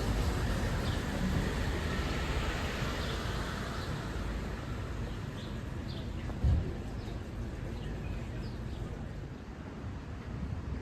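Outdoor ambience: a low steady rumble with a few faint short bird chirps, and a single thump about six and a half seconds in.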